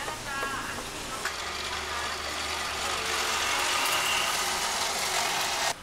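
A motor vehicle's engine running with a steady low hum amid street noise, swelling for a few seconds and then cutting off suddenly near the end.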